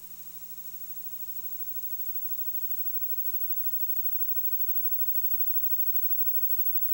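Steady hiss with a low electrical hum, the noise floor of the broadcast audio feed; no other sound stands out.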